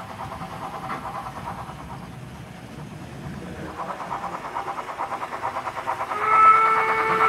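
Model steam locomotive's sound decoder playing rhythmic exhaust chuffing that grows louder as the train approaches; about six seconds in a chime-like steam whistle sounds and holds steady, the loudest sound.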